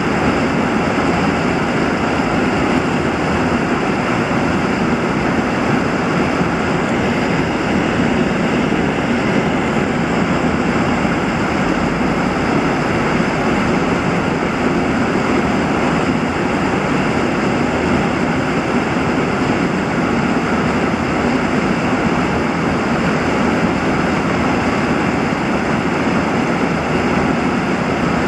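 Fast-flowing water churning into white foam: a steady, even rush of water with no breaks.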